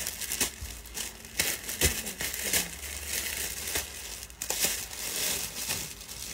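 Clear plastic garment bag crinkling and clothing fabric rustling in irregular bursts, as a pair of trousers is pulled off and a new outfit is taken out of its plastic packaging.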